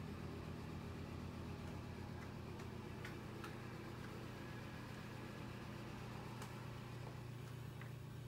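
Steady low hum of room tone, with a few faint ticks.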